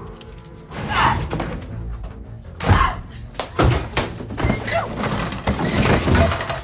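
Film soundtrack: music with several heavy thuds and knocks, the loudest about a second in, near three seconds and near four seconds.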